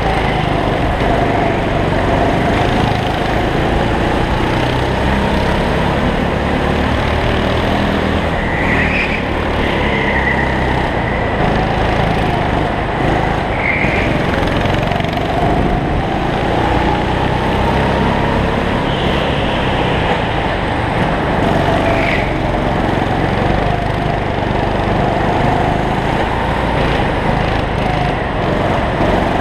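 Go-kart's small engine running hard, heard from onboard, its pitch slowly rising and falling as the kart speeds up on the straights and slows into the corners. A few short high squeals cut in briefly along the way.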